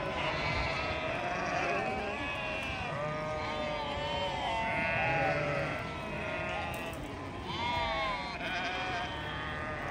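A flock of sheep bleating, with many calls overlapping one another and no pause between them.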